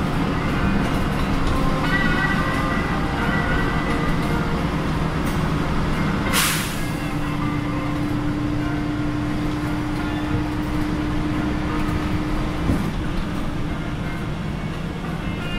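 City bus driving, heard from inside the cabin: a steady engine and road rumble. About six seconds in comes a short hiss of released air from the air brakes. It is followed by a steady hum that stops suddenly with a click a few seconds before the end.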